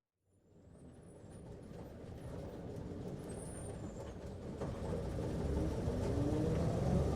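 Bus interior ambience fading in: low engine rumble and road noise that grows steadily louder, with a few faint rattles and squeaks, and a whine rising in pitch from about five seconds in as the bus speeds up.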